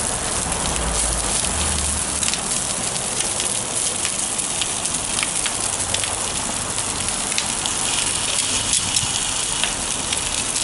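Food sizzling on foil on a gas grill: veggie dogs, burger patties, onions and peppers frying, a steady hiss with many small crackles.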